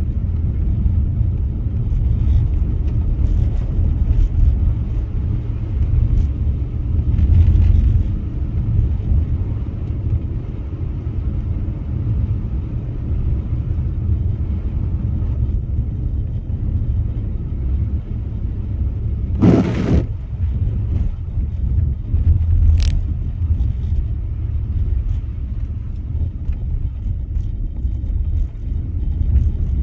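Steady low rumble of a car driving on snow-covered road, heard from inside the car. A short, sharp noise breaks in about two-thirds of the way through.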